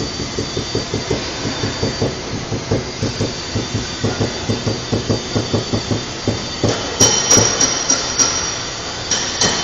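Rapid rhythmic tapping, about four light knocks a second, consistent with paintless dent repair tools working a car body panel. About seven seconds in the taps turn sharper, with a metallic ring.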